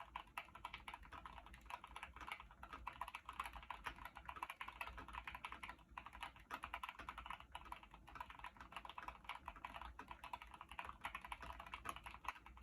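Fast, continuous typing on a Keychron mechanical keyboard fitted with purple linear switches: a rapid, unbroken stream of faint key clacks.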